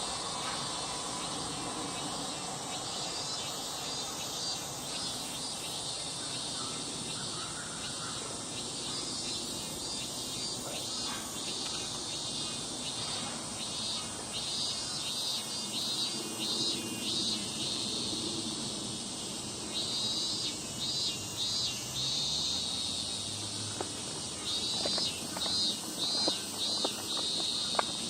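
Insects chirping in short pulsed trills over a steady insect hiss, the chirps growing louder and more frequent in the second half.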